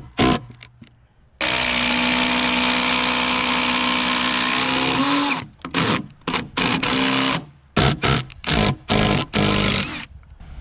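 Ryobi power drivers sinking long screws through an upright timber into a log wall: a steady motor run of about four seconds whose pitch rises slightly near its end, then a string of short stop-start trigger bursts, about three a second.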